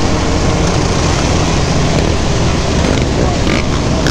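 Several ATV and dirt-bike engines running together in a moving group ride, heard from the rider's own quad, with wind on the camera microphone.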